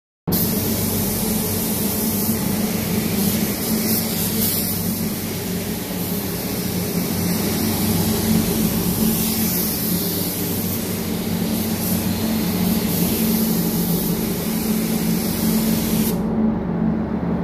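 Compressed-air paint spray gun hissing steadily as it sprays paint onto an aircraft radome, with a steady low hum underneath. The hiss stops near the end while the hum carries on.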